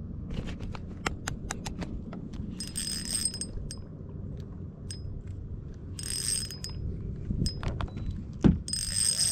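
Fishing reel working: a quick run of clicks, then three short high whirring bursts about three seconds apart. A dull thump comes near the end.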